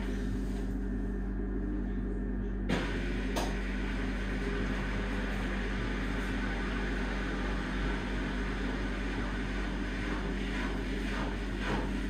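Washing machine running with a steady low hum. Nearly three seconds in there is a click, after which a higher hiss joins the hum.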